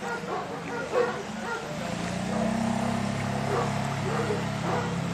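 Dog barking repeatedly, with a steady engine hum from a boat starting about two seconds in.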